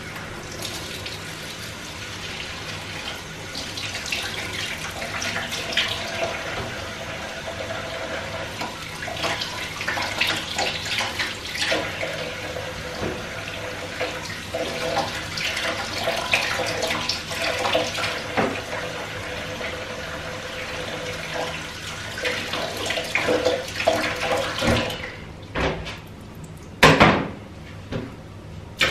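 Kitchen tap water running and splashing in a stainless-steel sink, with small clinks, as the soaking water is let out and the pheasant skins are rinsed. The water stops a few seconds before the end, followed by one sharp knock.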